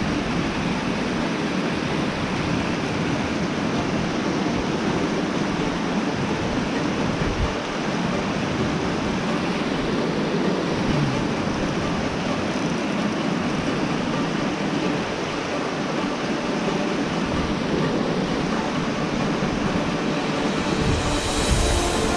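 Shallow creek water rushing over flat rock ledges: a steady rushing noise that barely changes.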